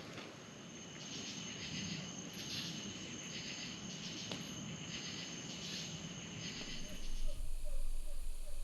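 Insect chorus at dusk: a steady high trill with repeated pulsing chirps a bit more than once a second, over a faint low murmur. About seven seconds in it cuts off suddenly and a low rumble takes over.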